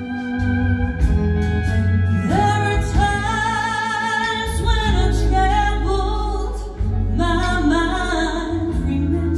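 Live band with pedal steel guitar, bass and drums playing; a woman's lead vocal comes in about two seconds in.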